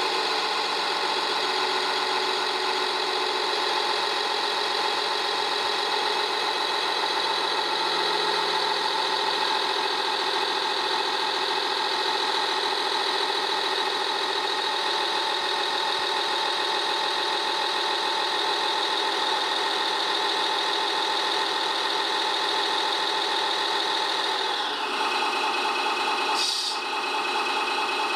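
Simulated diesel engine idling from a radio-controlled heavy-equipment model's sound module: a steady, rattly drone from a small speaker. Near the end the pitch shifts and the sound briefly dips.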